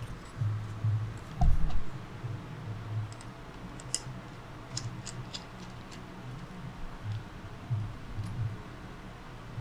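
Scattered small clicks and light taps of hands and a tool on laptop parts as the hard drive is taken out of an opened laptop, with a low handling rumble and one dull thump about a second and a half in.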